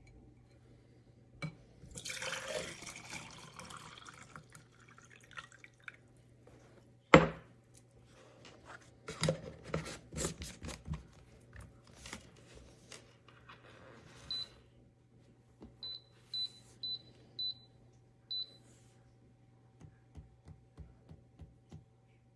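Water pours briefly, then a sharp knock and a spell of handling clatter. Later comes a run of about six short, high electronic beeps, like an appliance's buttons being pressed, and a few light taps near the end.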